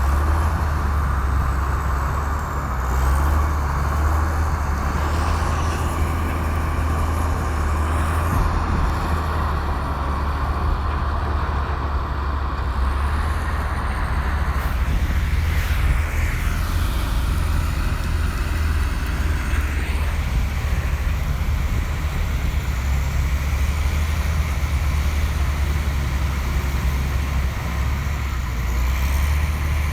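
Komatsu bulldozer's diesel engine running steadily at working speed, a continuous low drone.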